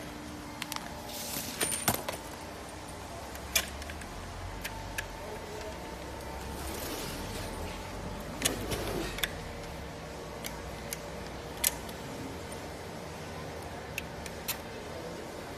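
Scattered light clicks and knocks as rattan-wrapped steel chair frame parts are handled and fitted together, over a faint steady hum.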